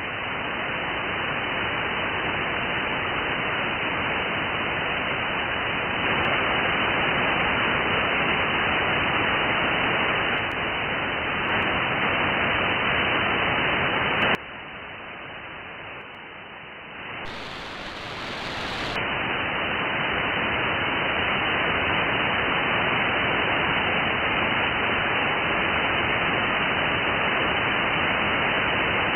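Static hiss from a software-defined radio receiver tuned between stations, dull-sounding because the receive filter cuts off its top end. About halfway through the hiss drops sharply in level for a few seconds, sounds brighter for a moment, then comes back at full strength.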